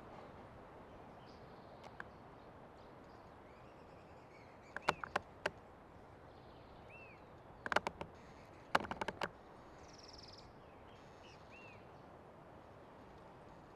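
Old tree creaking in three short bursts of rapid clicks, about five, eight and nine seconds in, over a steady forest hiss. Faint bird chirps come in between.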